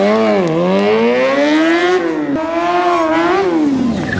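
Sportbike engine revving hard during a stunt run, its pitch climbing and falling back twice while the rear tyre spins and smokes.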